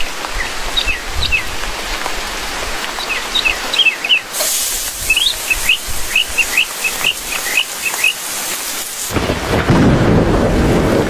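Steady rain with small birds chirping over it in short, quick calls, then a loud rumble of thunder sets in about nine seconds in.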